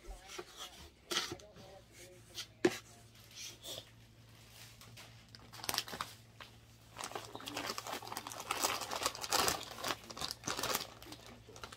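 A few sharp knocks of a plastic scoop in a tub of powder laundry detergent, then a plastic detergent bag crinkling as it is handled. The crinkling is densest in the last few seconds.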